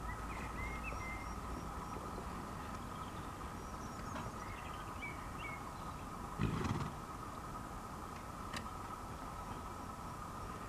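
Background of small birds chirping. About six and a half seconds in, the horse gives one short, loud snort.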